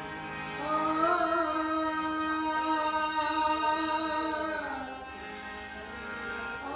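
Live Rajasthani folk song accompanying a Ghoomar dance: a singer holds one long note from about a second in to near five seconds, over steady held instrumental tones.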